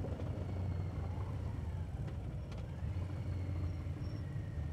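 Harley-Davidson V-twin motorcycle engines running steadily at cruising speed, a continuous low drone.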